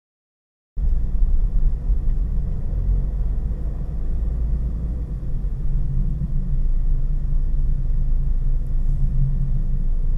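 Steady low rumble of a car being driven, heard from inside the cabin: engine and road noise. It starts about a second in.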